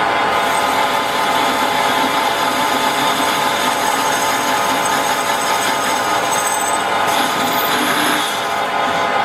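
Metal lathe running under a cut, a steady whine with the hiss of the tool cutting the face of a spinning metal flange. The cutting hiss comes in just after the start.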